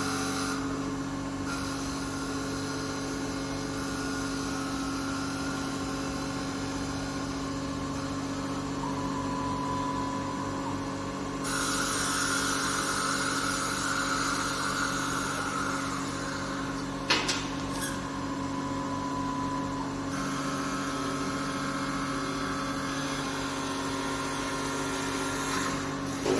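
Mini CNC wood lathe running: a steady motor hum under a hiss of cutting, which grows louder and brighter from about 12 s in until about 20 s in. There is a single sharp knock near 17 s.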